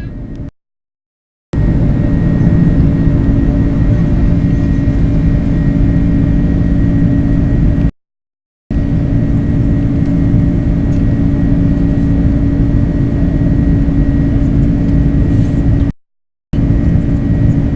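Airliner engines at high power heard inside the passenger cabin: a loud, steady noise with a steady droning hum and a faint high whine. It cuts to dead silence and back three times.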